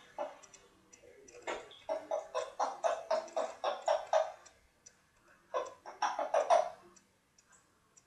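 African grey parrot making runs of short, evenly repeated notes, about three a second, in three bursts with short pauses between.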